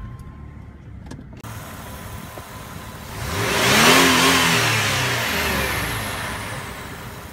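A car driving past: engine and tyre noise that swells to a peak about four seconds in, the engine pitch rising and then falling as it goes by, then fades away.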